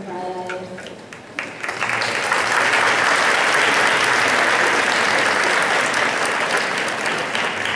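Audience applauding: a few scattered claps about a second and a half in swell into dense, steady applause that starts to die away near the end.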